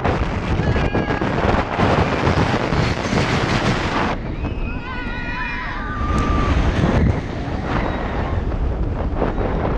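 Wind rushing and buffeting the microphone on a moving floorless roller coaster, with a low rumble throughout. About four seconds in the rush eases for a couple of seconds and several riders' wavering screams and whoops come through.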